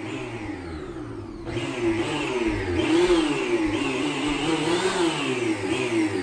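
Bissell PowerForce upright vacuum cleaner running, its motor whine wavering up and down in pitch; the whoosh grows louder about a second and a half in.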